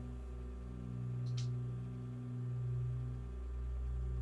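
A steady low droning hum that swells gently a couple of times, with one faint, brief high chirp about a second and a half in.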